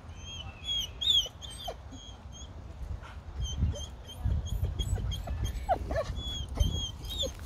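German shepherd puppies whining: many short, high-pitched whimpers over and over, with a few lower drawn-out whines near the end. A low rumble swells underneath in the second half.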